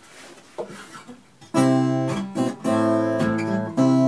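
Acoustic guitar strumming chords, the intro of a song, starting about a second and a half in after a few faint handling clicks.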